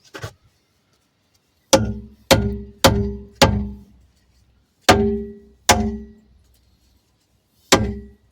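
Hammer blows on thick steel, seven sharp strikes in an uneven rhythm, each leaving a short metallic ring. The blows are knocking a cut steel piece loose.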